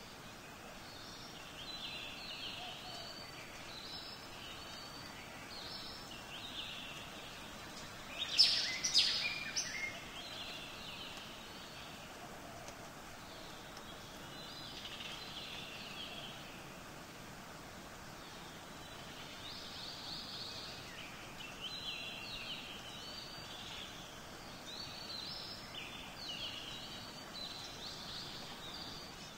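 Small birds chirping and twittering over a steady outdoor hiss, in short scattered calls, with one louder cluster of calls about eight to ten seconds in.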